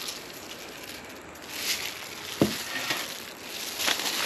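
Hands salting a whole fish laid on fresh banana leaves: rustling and crinkling of the leaves and scraping as salt is sprinkled and worked in, with one sharp knock about two and a half seconds in.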